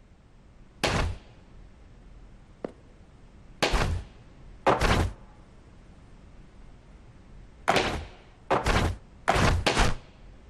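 A series of heavy thuds, about eight of them in irregular groups, some in quick pairs, with one small sharp click about two and a half seconds in.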